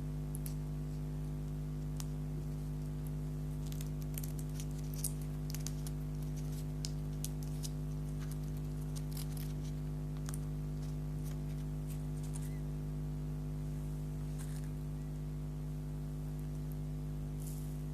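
Eating a chocolate cupcake: soft chewing and small mouth clicks and crackles, scattered irregularly and busiest in the first half, over a steady low electrical hum.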